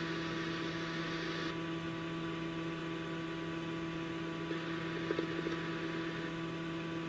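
Steady electrical hum with hiss on the radio scanner audio between dispatch transmissions. A faint brief flutter comes about five seconds in.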